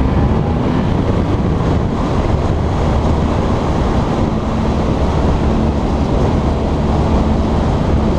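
Motorcycle riding at steady speed: wind rushing over the microphone with the engine running underneath, and a faint steady engine hum coming in about halfway through.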